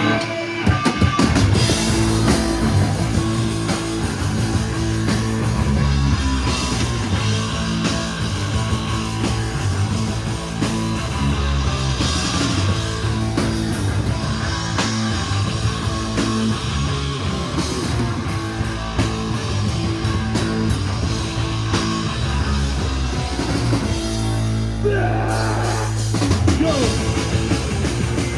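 Live punk rock band playing loud: distorted electric guitars, bass and a pounding drum kit, heard from the audience. Near the end the cymbals drop out for a moment and a guitar slides upward before the full band comes back in.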